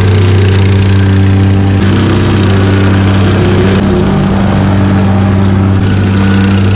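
An engine running steadily at constant speed, loud and close, with a strong even low hum.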